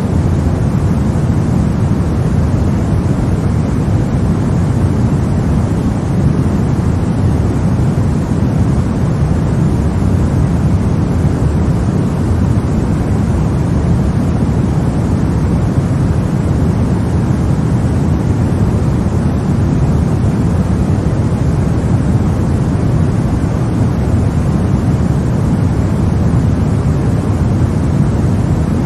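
Steady white-noise sleep track for babies: an even, unbroken rushing hiss, deep and rumbling rather than bright, with no changes or events.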